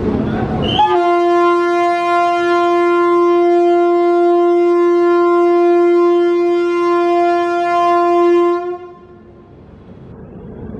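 WAP-7 electric locomotive's air horn sounding one long steady blast of about eight seconds, the departure signal as the train is flagged off.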